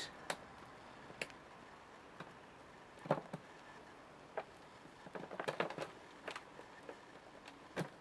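Faint crackling and crumbling of a compost root ball of leek seedlings being broken apart by hand, as scattered small clicks with a denser patch about five seconds in.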